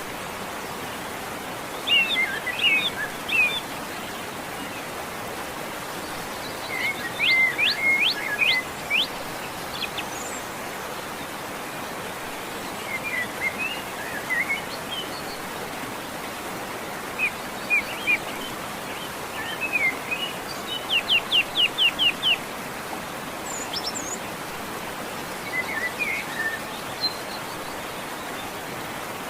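Songbirds singing in short phrases of quick whistled and trilled notes every few seconds, over a steady background hiss.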